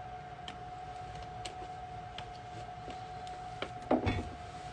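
Faint clicks and crackles of a plastic water bottle being drunk from, then a louder knock about four seconds in as the bottle is set down, over a steady high hum.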